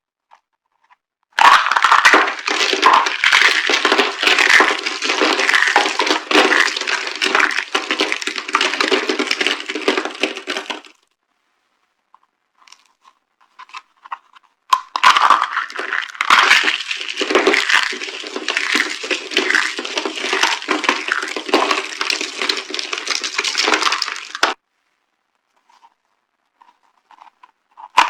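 Dry soap boxes being crushed: a dense, crunching crackle in two long spells of about nine seconds each, with a few scattered cracks between, and another spell starting right at the end.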